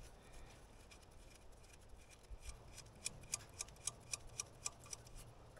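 Ratchet clicking faintly in an even run of about four clicks a second, starting about two seconds in and lasting about three seconds, as a nut on the excavator engine's AC compressor mount is turned.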